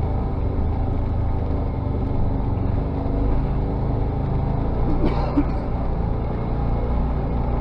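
Side-by-side UTV engine running steadily while under way, a continuous low drone. A brief sharp sound cuts through about five seconds in.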